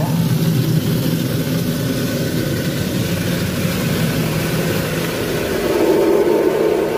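High-pressure rinse water spraying against the car's body and windows, heard from inside the cabin. It is a loud, steady rush over a low machine drone, and it swells near the end.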